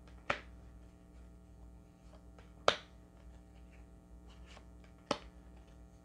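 Tarot cards dealt one at a time onto a cloth-covered table: three sharp slaps about two and a half seconds apart, with faint card handling between.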